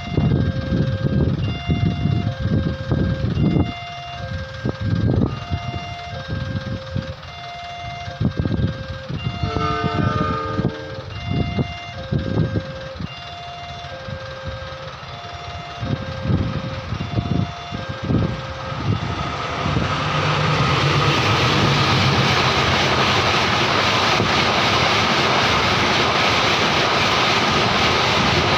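Railway level-crossing warning siren sounding two alternating tones, high then low, about one pair a second, with road vehicles passing. About ten seconds in a short horn sounds, and from about twenty seconds in a train passes over the crossing, its wheels on the rails making a loud, steady noise.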